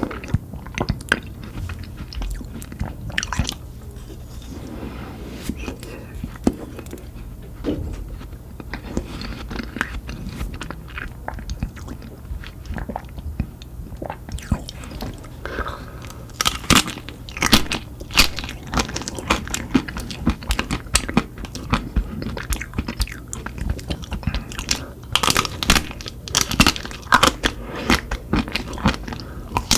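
Close-miked eating of ice cream: repeated bites and chewing with sharp crunching, in dense clusters about halfway through and again near the end.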